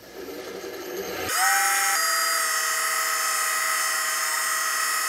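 Wood lathe motor switched on a little over a second in: it whines quickly up to speed, then runs steadily at about 2000 RPM with a high, even whine.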